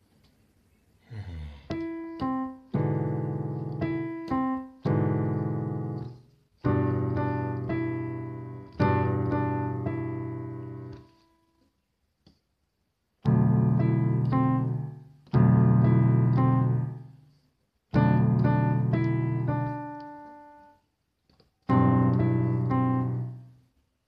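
Piano chords played one at a time: a few quick short chords near the start, then longer chords struck about every two seconds, each held and left to die away, with a pause in the middle.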